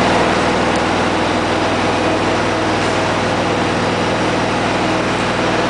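Steady, loud drone of machinery on an airport apron: an engine-like hum made of several unchanging tones over a rushing noise, with no rise or fall.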